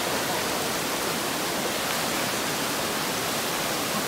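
Steady rushing water, an even, unbroken noise with no clear pitch.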